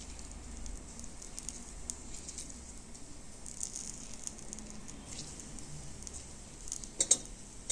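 Lemon wedge squeezed by hand over a bowl of chopped radish, with faint squishing and juice pattering onto the vegetables. Two sharp clicks come close together near the end.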